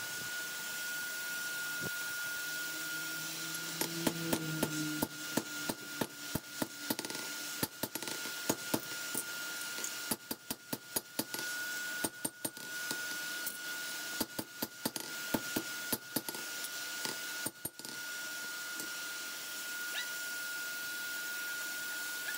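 Blacksmith's hand hammer striking a bowie knife blank forged from a lawnmower blade, held in tongs on the anvil: runs of sharp metal-on-metal blows, several a second, starting about four seconds in and stopping near eighteen seconds. A steady high tone runs underneath.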